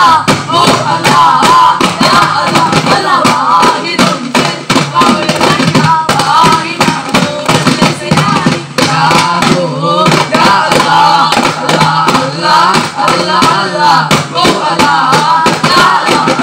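Daf muttu: a group of men singing together in chorus while beating hand-held daf frame drums in a steady rhythm.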